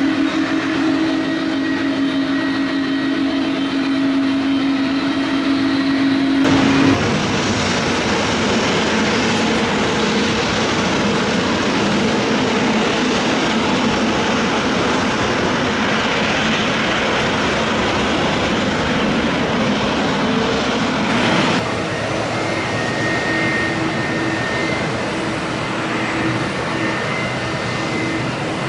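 Boeing 777 jet engines running loud on departure, a steady drone that turns into a dense rushing noise about six seconds in and changes abruptly again about twenty-one seconds in.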